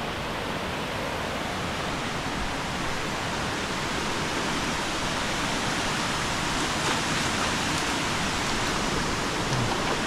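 Waterfall rushing steadily as water pours down a rock slide into a pool.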